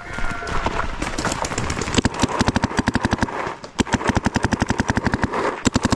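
Paintball marker firing rapid strings of shots, about ten a second, with brief pauses between strings.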